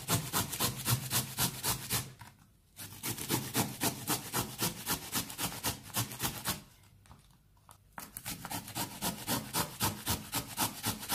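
Raw unpeeled potato rubbed back and forth on a flat stainless-steel hand grater, a fast rasping scrape at about five strokes a second, stopping briefly twice.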